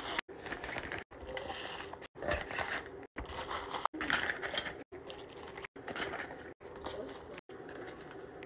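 Crinkling and rustling of plastic snack pouches and a food container being handled and packed into an insulated lunch bag, in short snippets broken by brief dropouts about once a second.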